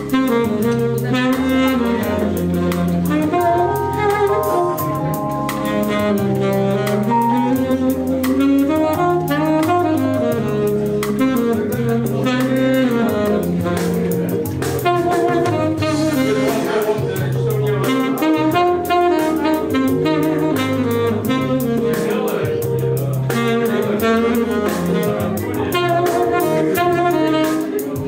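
Alto saxophone playing a flowing melody over a backing track with a bass line and a steady beat.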